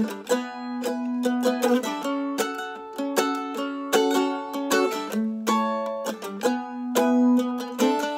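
Eight-string F-style mandolin played with a pick: a run of chords, each struck with quick strokes and left ringing between them, leading into and through the chorus of the song.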